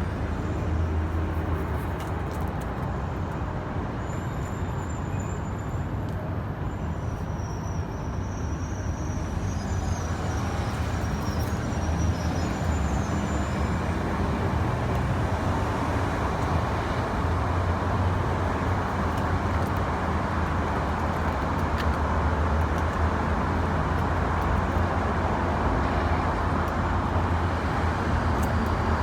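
Steady low rumble of road traffic. A few faint, thin high sounds come and go in the first half.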